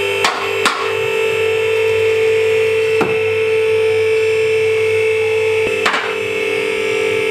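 Two-post car hoist's electric hydraulic pump motor running with a steady, high-pitched hum as it raises a car, with a few sharp clicks along the way.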